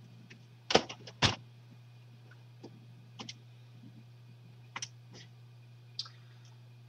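Scattered clicks and knocks of a handheld calculator being picked up and handled, two sharper ones about a second in, then lighter clicks spaced out over the next few seconds, over a steady low hum.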